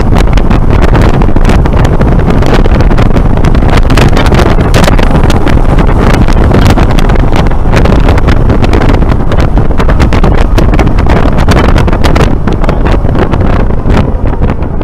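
Heavy wind buffeting the microphone in the open cockpit of a Polaris Slingshot at road speed, over engine and road noise, easing slightly near the end.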